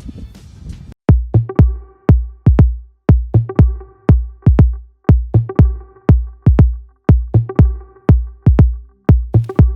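Electronic dance music with a steady, deep kick-drum beat about two hits a second and held synth notes, starting about a second in after a brief noisy lead-in.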